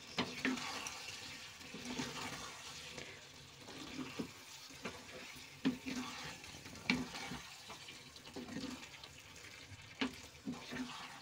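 A spatula stirring paneer cubes and peas through thick masala in a nonstick kadai: soft wet, squelching scraping, with about eight separate knocks of the spatula against the pan.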